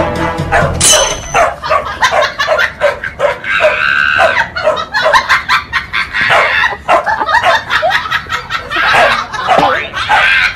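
Dog vocalizing in a rapid string of short, pitch-bending yips and whines, with a longer held call about four seconds in.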